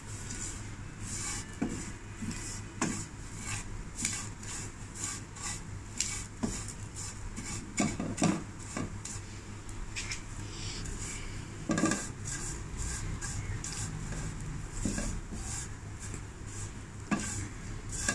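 A wooden spatula stirring and scraping fine vermicelli around a non-stick kadai as it roasts in ghee, in many quick, uneven strokes against the pan.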